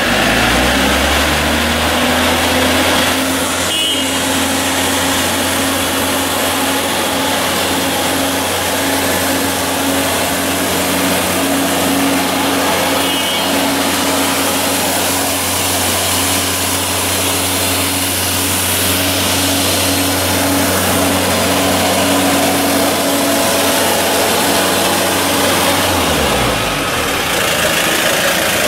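Engine of a T-Vac vacuum excavation unit running steadily, with a constant hiss over it. It comes up to speed in the first second and drops in pitch near the end.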